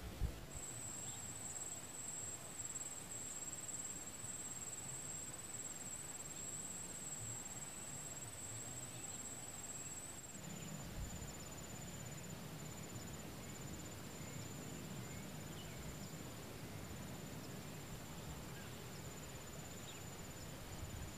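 Insects chirring in a steady, high-pitched, unbroken drone over an even background hiss. The drone is louder for the first half, then changes to a slightly lower, fainter tone about halfway through.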